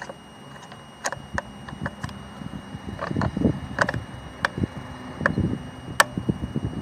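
Irregular sharp clicks and light knocks, a dozen or more at uneven spacing, from tools and car door trim parts being handled during reassembly.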